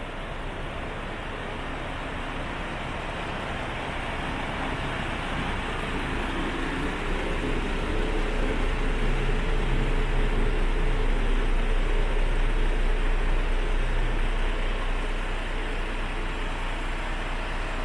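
MAN TGX 26.440 tractor unit's 440 hp common-rail straight-six diesel idling steadily, growing louder partway through and easing off a little near the end.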